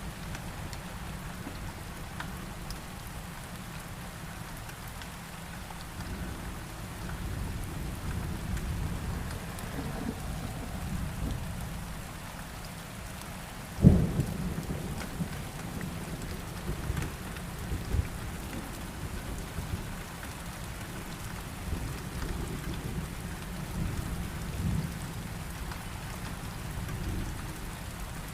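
Steady rain with low thunder rumbling under it. About halfway through a sharp thunderclap cracks, the loudest sound, and rolls off, with a smaller rumble a few seconds later.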